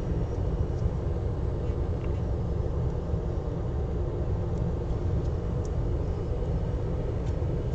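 Steady low background rumble of room noise, with a few faint light ticks scattered through it.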